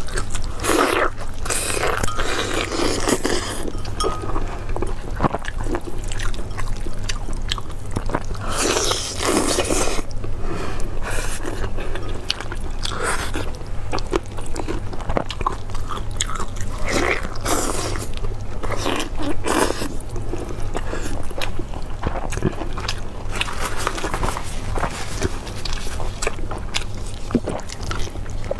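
Close-miked eating sounds: biting and chewing braised, sauce-glazed meat on the bone, with wet, sticky tearing as the meat is pulled from the bone by hand. Irregular smacks and clicks, over a steady low hum.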